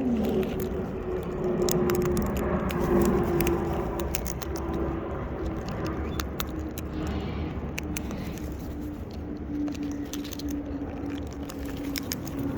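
A steady engine hum, slowly falling in pitch, from a vehicle, with many sharp clicks and taps of birds pecking at their food.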